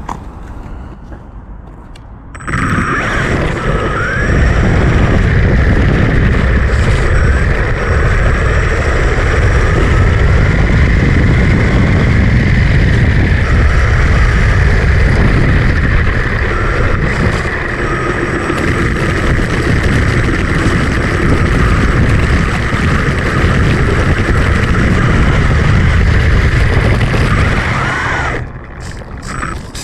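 Home-built 3D-printed RC car driving, heard as a loud, heavy rumble with a whine that rises and falls as it speeds up and slows. It starts about two seconds in and stops shortly before the end.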